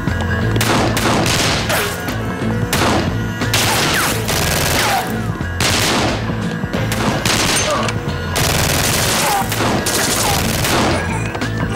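Gunfire from several pistols in a shootout, shots coming in quick clusters one after another, over a low, steady music score.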